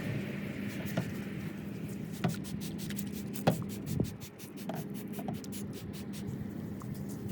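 Hand rubbing and scratching on a plastic headlight lens, a fine scratchy run of strokes over a steady low hum, with a few light knocks.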